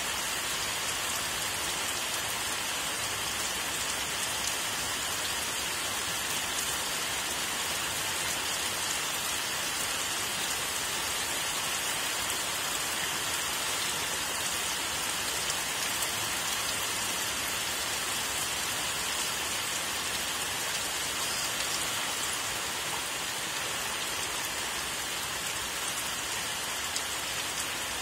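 Steady rain falling, an even hiss without thunder.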